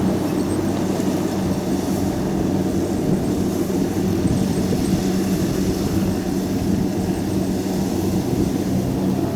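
Kubota DC70 combine harvester's diesel engine running steadily under load, a constant low hum with machinery noise over it. Its note shifts slightly near the end.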